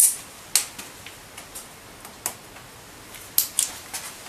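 Pliers clicking and snapping as a blue quick-splice wire connector is squeezed shut onto wiring. A sharp click comes at the start, then several more, two close together near the end.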